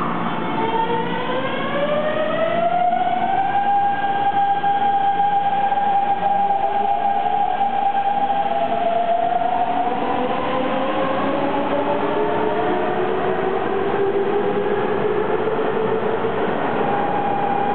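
Hanshin 5500 series electric train accelerating away from a standstill: its traction motors give a whine of several tones that climbs in pitch over the first few seconds, levels off, then climbs again in a second, slower rise, over a steady rumble of wheels on rail.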